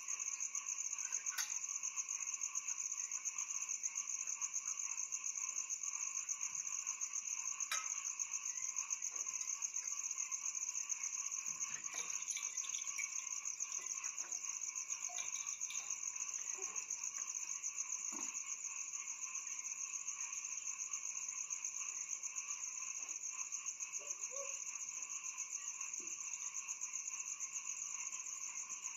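Steady chorus of trilling insects such as crickets, several fast, even trills at different pitches sounding at once, with a few faint knocks now and then.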